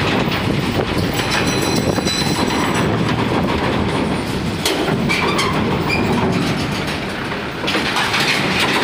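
Heavy truck-trailer rolling onto a ferry at loading, with a steady rumble and a rattling clatter of many knocks.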